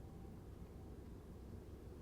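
Faint, steady low rumble of a car being driven along a city street, with road and engine noise and no distinct events.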